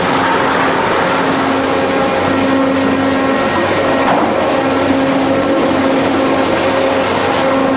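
Mill machinery running steadily: a log-feed chain conveyor and its drive make a constant mechanical noise with a steady hum.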